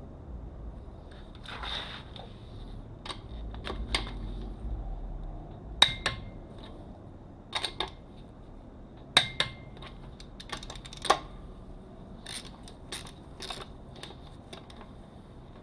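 Torque wrench and socket on a wheel's lug nuts: a series of sharp metallic clicks and clinks at uneven intervals as the lug nuts are torqued in a cross pattern.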